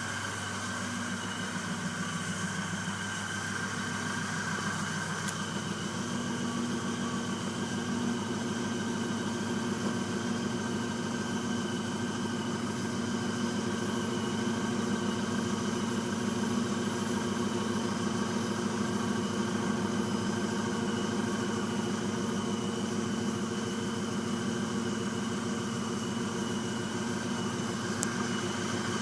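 A Kia Sportage's 2.0 SOHC engine idles steadily, driving a belt-driven York 210 piston air compressor. The sound has a fast, even pulsing and gets slightly louder over the first several seconds.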